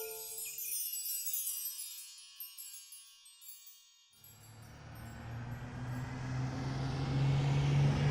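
A chiming, jingling flourish dies away over the first few seconds. After a brief near-silent gap, a bus engine fades in about four seconds in and runs with a steady low hum that grows louder.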